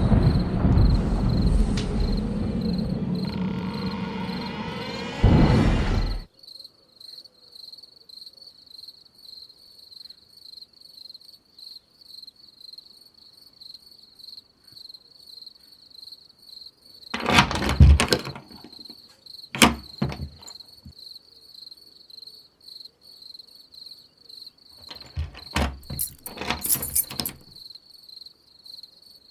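Crickets chirping steadily in a high trill, heard after background music stops suddenly about six seconds in. Two bursts of knocking and rattling come about seventeen and twenty-five seconds in, from a padlocked wooden door being handled.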